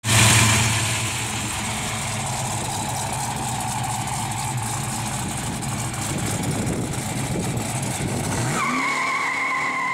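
Performance-built 426 Hemi V8 with dual Flowmaster exhaust, running loud as the car drives away, starting suddenly. Near the end the engine note rises and a steady high whine comes in.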